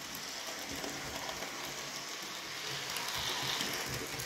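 OO gauge Accurascale Hinton Manor model locomotive running, with a quiet, steady whirr of motor and wheels on the rails. It grows a little louder about three seconds in as the engine passes close.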